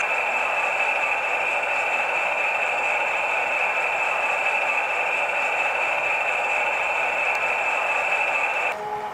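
Sound-decoder diesel engine sound of a model PKP diesel locomotive, played through its small onboard speaker: a steady buzzy hiss with a constant high whine. It cuts off suddenly near the end and a different sound with several steady tones takes over.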